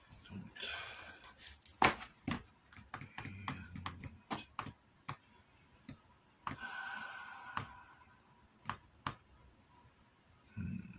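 Hands handling leather pieces and a leather lace on a cutting mat: scattered light clicks and taps, with two longer rustling, scraping stretches, one near the start and one about six and a half seconds in.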